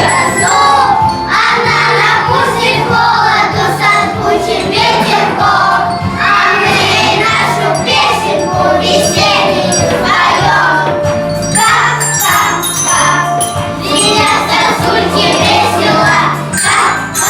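A song played and sung over a backing track with jingle bells and a steady bass beat.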